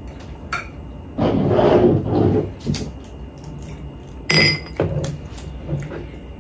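Tableware being handled at a meal: a few light knocks, a longer muffled rustling noise a little over a second in, and a sharp dish clink with a brief ring about four seconds in.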